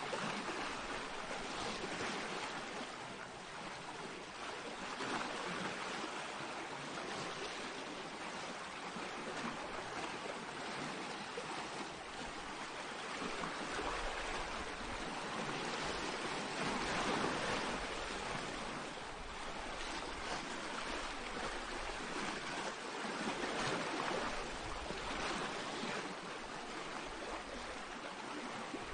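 Small sea waves washing onto a pebble shore, a continuous rushing hiss that swells and eases every few seconds.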